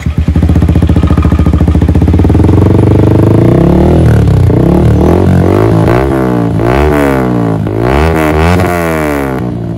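Honda CBR 250R's single-cylinder engine firing up and running at a fast idle, then revved in about half a dozen quick throttle blips, each rising and falling in pitch, before easing back near the end. It is running through the bike's usual exhaust, just refitted.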